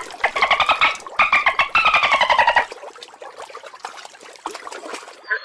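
An animal's rapid, rattling call in two phrases, the second slightly falling in pitch, then a fainter chatter.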